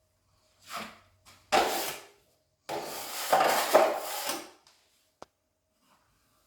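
Steel drywall knife scraping wet joint compound, in a few short strokes and then one long stroke, with a single sharp tap near the end.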